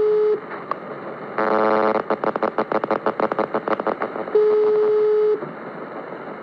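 Car alarm sounding: a steady tone for about a second, a short buzzing tone, a rapid run of beeps about ten a second for two seconds, then the steady tone again.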